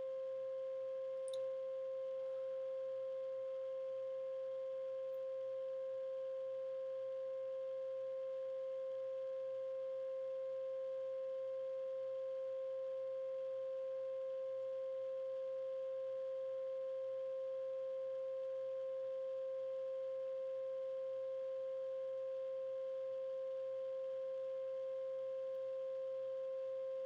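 Steady 528 Hz pure tone, held unchanged throughout, with a fainter tone an octave above it.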